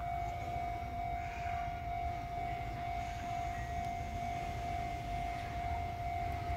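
Railway level-crossing warning bell sounding a steady, repeating electronic tone as a Keihan 600-series train pulls away from the station toward it. A low rumble sits underneath.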